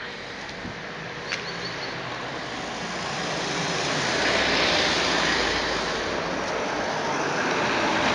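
An unexplained rushing rumble, heard in the mountains, swells up over a few seconds and then holds, with faint droning tones underneath. There is a single sharp click about a second in.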